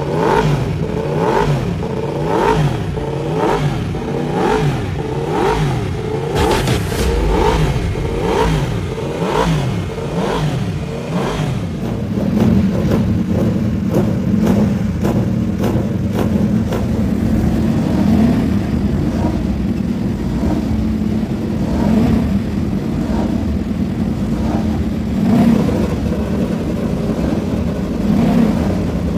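Racing superbike engines revving and running. Quick, evenly repeated rising rev blips fill the first half, giving way about halfway through to a steadier low drone that swells now and then.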